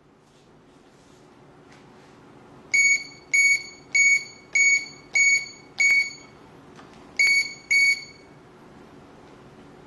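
AAS security alarm keypad controller beeping: eight short, high-pitched electronic beeps, six evenly spaced over about three seconds, then a short pause and two more. Faint clicks come before and between them.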